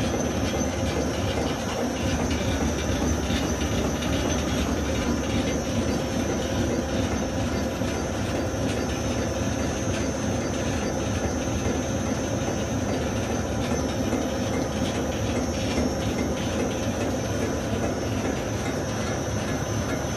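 Electric chin chin cutting machine running steadily: a constant mechanical hum with a low and a high held tone and a light, continuous rattle.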